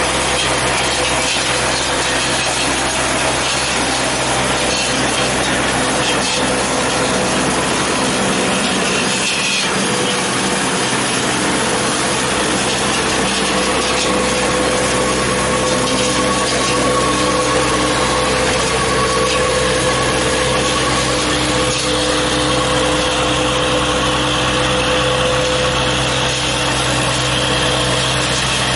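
Tractor-mounted orchard pruner, a vertical bar of spinning circular blades, running steadily and cutting through the branches and leaves of fruit trees, over the tractor's engine.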